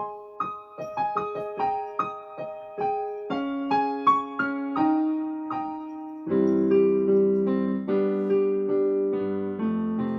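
Electric keyboard playing a gentle song introduction: single notes stepping in a broken-chord pattern, then fuller held chords with a deeper bass about six seconds in.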